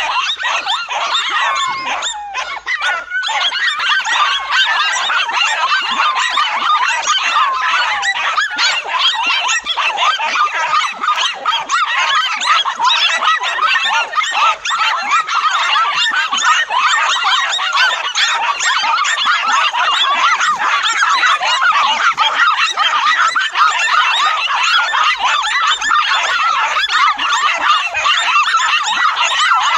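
A dense, unbroken chorus of many animals calling at once: short, high, overlapping calls piling on top of one another, with a brief lull about two seconds in.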